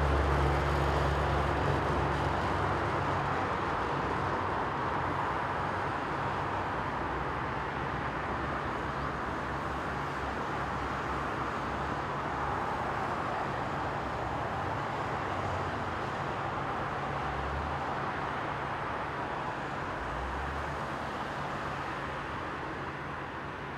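Distant jet aircraft noise: a steady rushing sound that slowly fades, with a low rumble in the first second or so that dies away.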